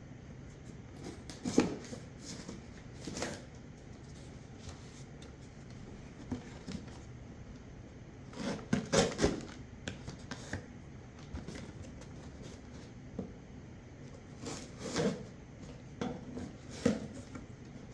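Packaging and a newly unboxed item being handled: scattered rubs, clicks and knocks, with a cluster of knocks about nine seconds in.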